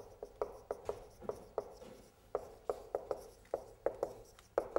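Marker pen writing on a whiteboard: a run of short, quick strokes, a few a second, as letters are written by hand.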